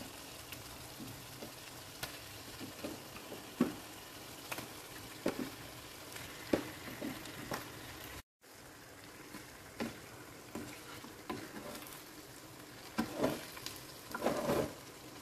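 Spiced seasoning paste frying in a wok, a steady sizzle, with scattered soft knocks as pieces of white snapper are set into the pan. The sound cuts out for a moment about eight seconds in, and near the end a wooden spatula stirs and scrapes through the fish and paste.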